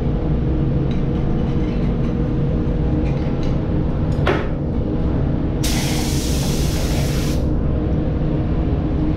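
Pneumatic gravity-feed paint spray gun fired once, a hiss of compressed air lasting about two seconds a little past halfway, over a steady low machine hum. A sharp knock comes a little before the hiss.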